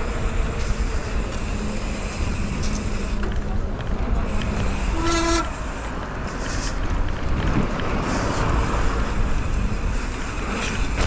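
Steady wind and riding noise on a mountain biker's action-camera microphone. About halfway through, a short horn toot sounds once, lasting about half a second.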